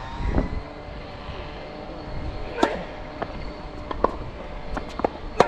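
Tennis balls being struck by rackets and bouncing on the court during a rally, heard as sharp pops, the loudest about one and a half seconds apart in the second half, over low wind noise.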